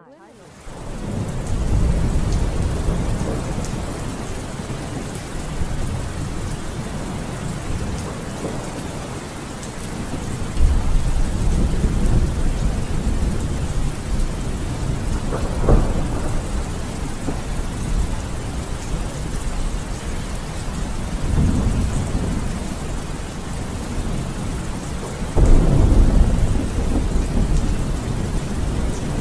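Steady rain with rolling thunder, fading in over the first second or so. Low rumbles swell and fade several times; the strongest start abruptly about ten and about twenty-five seconds in.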